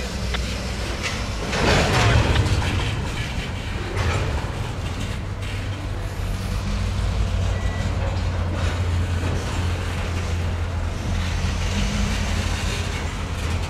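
Freight cars rolling slowly over the rails during a switching move, with a steady low rumble and louder swells about two and four seconds in.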